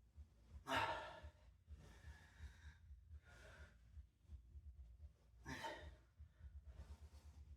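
A man breathing out hard through a set of curl-ups: about five short, sigh-like exhales over several seconds, the loudest about a second in.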